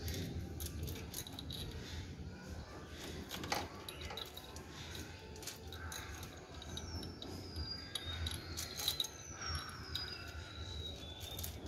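Light, scattered metallic clicks and clinks of engine parts and tools being handled by hand on a Modenas Ace 115 motorcycle engine. From about halfway through, birds call in the background with short whistles falling in pitch.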